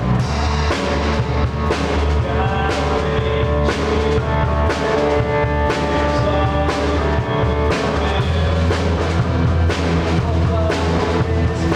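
A live rock-style band playing a song in rehearsal: a drum kit keeps a steady beat under sustained guitar and bass notes.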